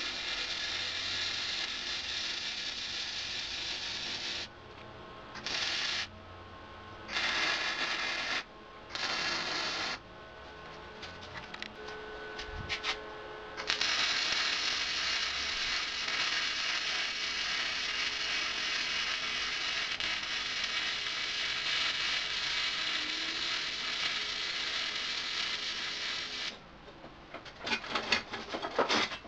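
Lincoln flux-core wire-feed welder arc crackling in several short bursts of a few seconds each, then one long bead of about twelve seconds. A run of sharp clicks and taps follows near the end.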